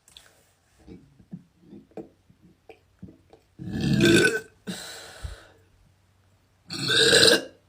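A woman burping loudly twice, about three seconds apart, the first trailing off into a quieter rasp; short faint mouth sounds come before them.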